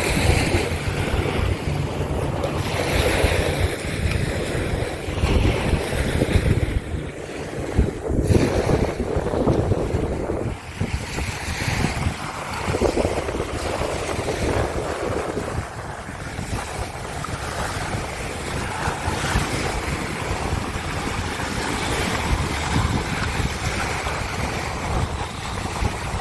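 Wind buffeting the microphone, with a rumbling, gusting noise over the rush of ocean surf.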